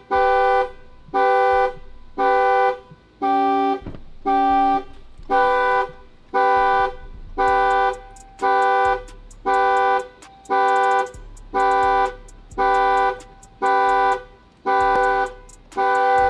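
Dodge Challenger's anti-theft alarm going off, sounding the car horn in a steady series of honks, about one a second, each about half a second long.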